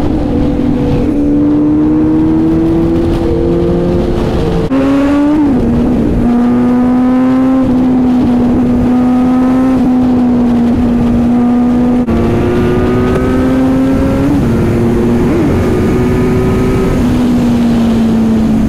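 Motorcycle engine running at high, steady revs, its pitch climbing gently and then holding. The sound changes abruptly twice, about five and twelve seconds in.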